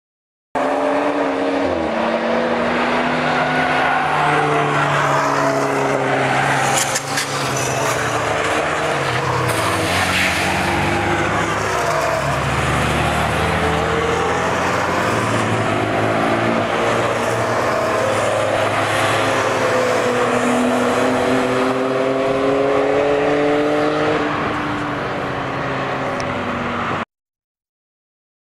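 Cars and motorcycles on a race track passing at speed, several engines overlapping, their pitch rising and falling over and over. The sound starts half a second in and cuts off abruptly near the end.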